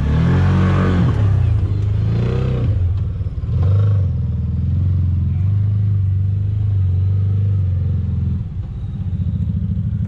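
Side-by-side UTV engine revving up and down in the first few seconds, then running steadily at a low, even pitch.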